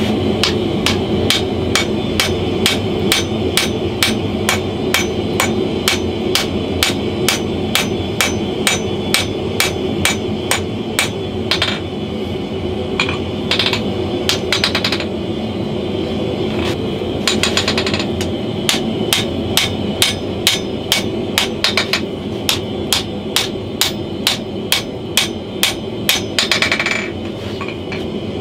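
Blacksmith's hand hammer striking a red-hot leaf-spring steel cleaver blank on a chain-draped anvil, steady blows at about two a second broken by a few short pauses, over a steady background noise.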